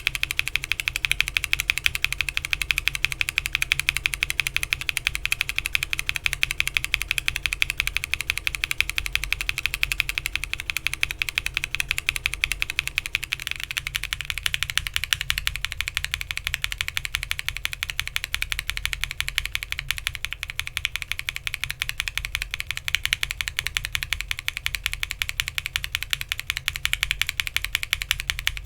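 Fast typing on a Bakeneko60 mechanical keyboard with an FR4 plate, PBT keycaps and NK Cream linear switches, keystrokes in a dense unbroken clatter. The switches are stock at first; about halfway through they are lubed Creams, and the clatter's tone shifts a little.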